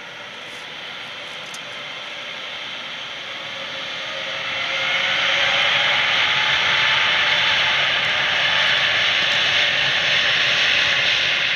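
Jet airliner engines heard close by at an airport, a broad rushing noise with a faint whine. It grows louder over the first five seconds, then holds steady and loud.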